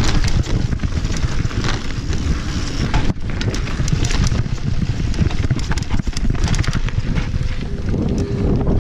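Mountain bike descending a rough dirt trail: wind buffeting the microphone, tyres rolling over dirt and loose stones, and the bike rattling over bumps with frequent sharp clicks and knocks.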